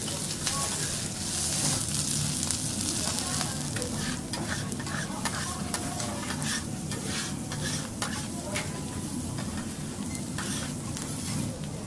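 Diced beef sizzling on a hot steel teppanyaki griddle: a steady frying hiss, broken by scattered sharp clicks and scrapes of metal spatulas on the plate.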